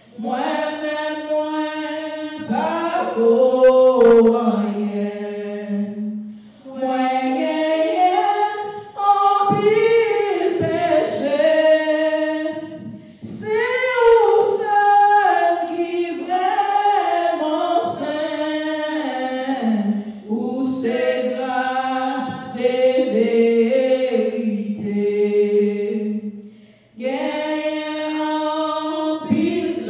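A woman singing a hymn solo and unaccompanied into a handheld microphone, in long phrases with short breaks for breath.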